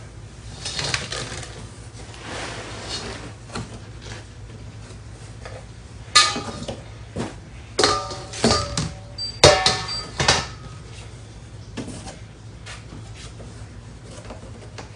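A stainless steel bowl being handled: a handful of sharp clanks, each with a short metallic ring, bunched between about six and ten seconds in, after softer rustling as ripe bananas are peeled.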